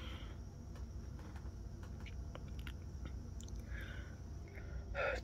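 Quiet room tone: a steady low hum with a few faint clicks and soft rustles, and a faint breath-like sound just before the end.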